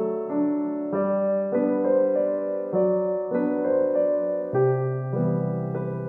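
Gentle background piano music, with soft notes and chords changing about every half second.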